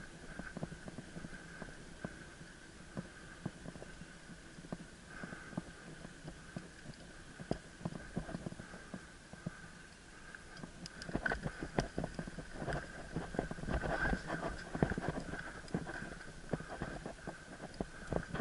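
Mountain bike ridden over a rough forest trail, heard from a head-mounted camera: the bike rattles and clatters over bumps and roots, rougher and louder from about ten seconds in, over a steady high whine.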